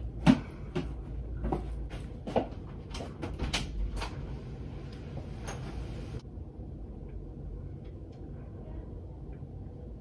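Clicks and light knocks of small makeup items being handled, picked up and set down, over the first six seconds; after that only a faint low hum.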